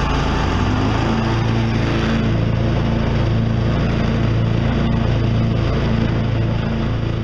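Zero-turn mower's 20 hp Honda V-twin engine running steadily at throttle. About a second in its note shifts as the blade clutch is engaged to drive the deck through the new mule belt.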